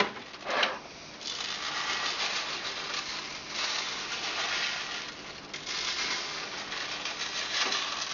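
Caustic soda granules shaken from a plastic bottle, rattling steadily onto the bottom of a plastic tub in uneven pours, with a sharp knock about half a second in.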